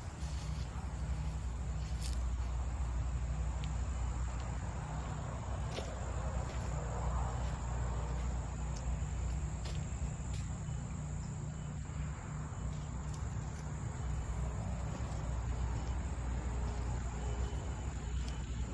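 Steady high-pitched chorus of insects, with a low rumble of wind on the microphone and a few faint clicks.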